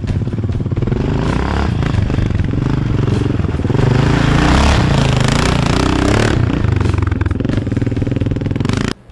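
Yamaha Ténéré trail motorcycle riding up a dirt track and passing close by, its engine pitch rising and falling as the rider works the throttle. It is loudest as it goes by, about four to six seconds in, and cuts off suddenly near the end.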